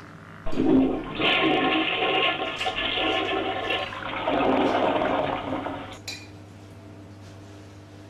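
A toilet flushing: a sudden rush of water starts about half a second in, runs for about five seconds and then dies away.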